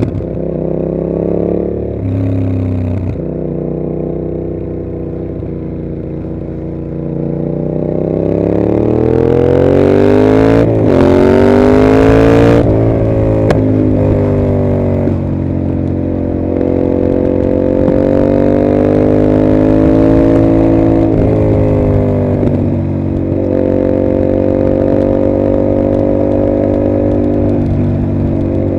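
A 2021 Yamaha MT-07's parallel-twin engine through a Mivv GP exhaust, the bike being ridden. The engine note climbs steadily under acceleration for several seconds, breaks off sharply at a gear change a little under halfway through, then settles to a steady cruising note with a few smaller changes in engine speed.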